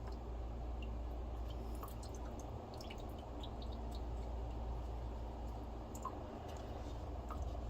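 Water dripping and trickling from an Amana Tandem 7300 washing machine's drain trap, with scattered small clicks and squishy handling of wet debris over a steady low hum.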